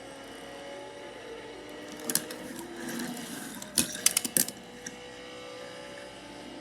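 A small motor whirring steadily, its pitch drifting slightly. There is one sharp click about two seconds in, then a quick run of clicks and clatters around four seconds.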